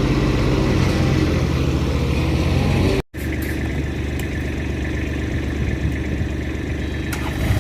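Backhoe engine running steadily at idle-like speed, cut off for an instant about three seconds in, then running on slightly quieter.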